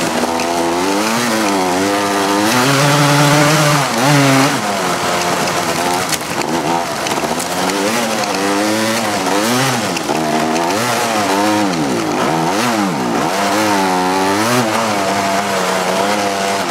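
Four-wheeler (ATV) engine being ridden hard, revving up and easing off over and over, its pitch rising and falling every second or two.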